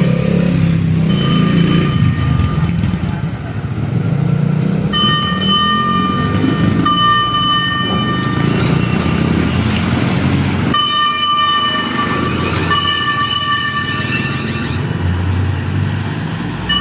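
Fire truck air horn sounding in repeated blasts, a couple of short ones first and then several long ones lasting seconds each, over the rumble of engines and traffic.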